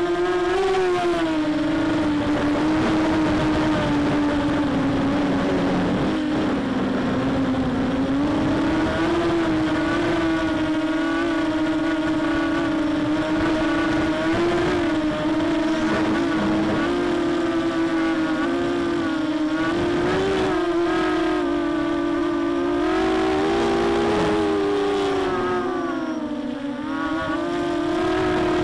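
Quadrysteria Mini Mamba 250-size racing quadcopter's motors and Gemfan 6x4 propellers whining in flight, recorded on the airframe, the pitch rising and falling with throttle and dipping briefly near the end. This quad has a hollow rattle to its sound that the owner cannot trace.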